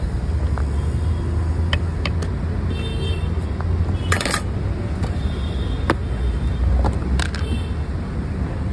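Busy street background of traffic: a steady low rumble, broken by a few sharp clicks and clatters.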